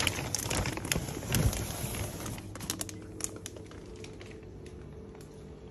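Plastic fish-shipping bags crinkling and rustling as they are handled in the box, busiest in the first few seconds and thinning out after about three seconds. A faint steady hum runs underneath.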